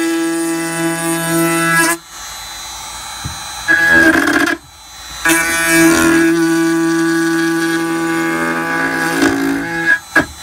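Makita compact router running at high speed with a quarter-inch roundover bit while routing along a plywood edge: a steady high whine that breaks off and drops in level a couple of times, around two and five seconds in, as the bit is fed into the wood.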